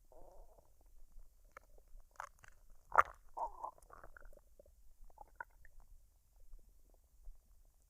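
A woman's stomach gurgling and rumbling while digesting a recent meal, in short scattered bursts that bunch together in the middle. A sharp click about three seconds in is the loudest sound.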